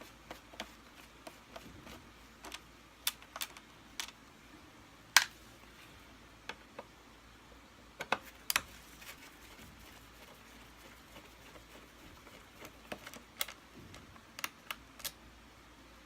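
Scattered sharp clicks and taps of a screwdriver and small parts against the plastic cover of a Kirby Sentria II vacuum as its screws are taken out, with the loudest knocks about five seconds in and again a little after eight seconds.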